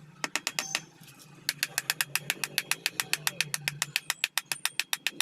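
Rapid, evenly spaced mechanical clicking, about ten clicks a second, after a short burst of clicks near the start; a low steady hum runs underneath.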